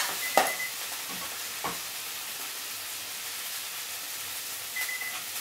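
Shrimp and broccoli stir-fry sizzling in a frying pan on a gas burner, a steady frying hiss. A few sharp knocks cut in, the loudest about half a second in.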